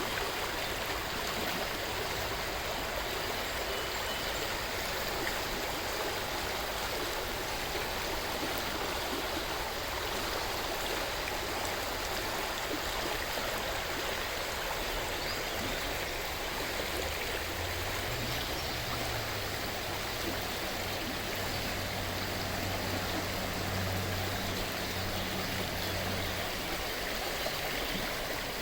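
River water rushing steadily. A faint low hum, such as a distant motor, joins past the middle and lasts about ten seconds.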